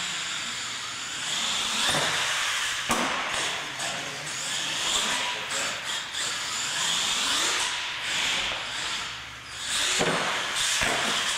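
Radio-controlled monster truck's electric motor whining up and down in pitch as it is throttled across a concrete floor, with sharp knocks about three seconds in and near the end.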